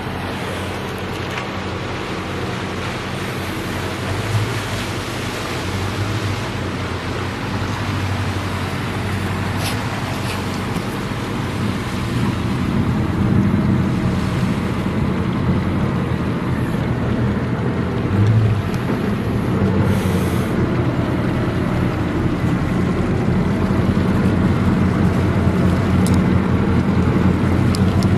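A steady low engine drone that slowly grows louder.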